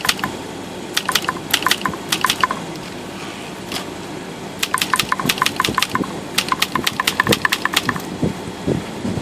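Montgomery Ward Brother typewriter being typed in three quick runs of keystrokes, the type bars clacking one after another. The keys are being tried after the sticky type-bar segment was flushed and lubed, to check whether any bars still stick or pull up together.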